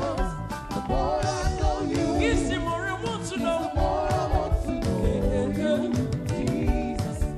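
Gospel worship music: a voice singing a bending melody over instrumental backing with sustained low notes and regular percussion hits.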